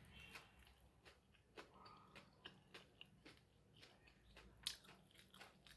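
Faint biting and chewing of crisp fried pakora, with scattered small crunches and one louder crunch about three-quarters of the way through.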